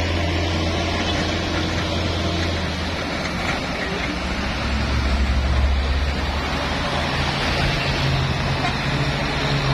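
Two loaded Mitsubishi Fuso diesel cargo trucks pulling uphill under heavy load, their engines making a deep, steady drone. The drone swells about halfway through as the nearer truck passes, and a second, slightly higher engine note comes in near the end from the following truck, which is belching black smoke as it labours.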